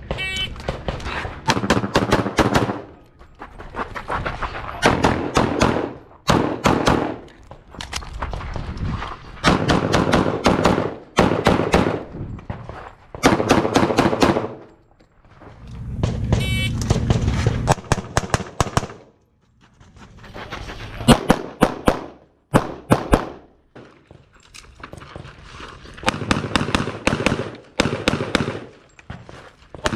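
Semi-automatic pistol fired in fast strings during a USPSA stage run: quick pairs and bursts of shots, broken by short pauses between strings.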